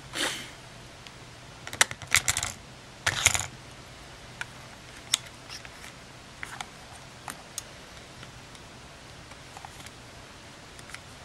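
Small plastic clicks and taps from handling a partly disassembled compact camera body: a quick run of clicks and a short rustling burst in the first few seconds, then scattered single clicks.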